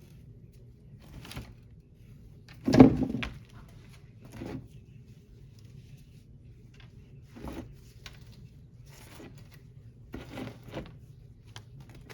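Scattered knocks and clicks of small carburetor parts and tools being handled and set down on a work surface, with one louder knock about three seconds in, over a low steady hum.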